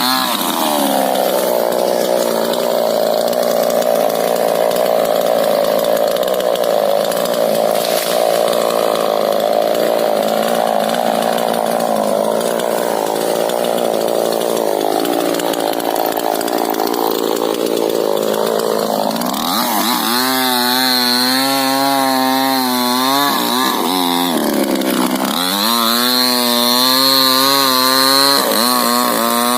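Two-stroke chainsaw cutting through rubber-tree wood, its engine note pulled down under load for most of the stretch, then revving up high as the chain comes free about two-thirds of the way in, with a short dip back under load before revving again.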